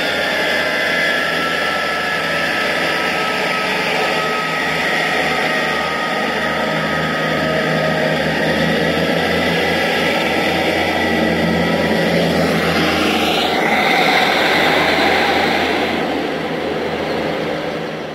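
Model Class 158 diesel multiple unit pulling away and running past along the track: a steady mechanical whine with several held tones over rail noise, fading near the end.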